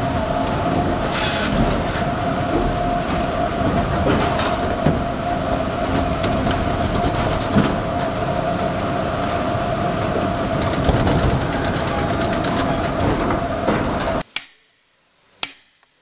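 Modern sawmill log-handling machinery running: log deck chain conveyor and grapple crane, a steady mechanical din with a constant whine and scattered clanks. It cuts off suddenly near the end, followed by two sharp knocks of a tool striking a log.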